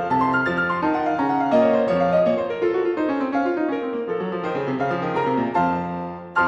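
Background piano music: a flowing melody of single notes over sustained chords.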